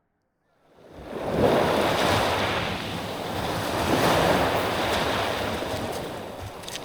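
Mediterranean Sea surf washing onto a beach, fading in after about half a second, with two waves swelling in about a second and a half and four seconds in.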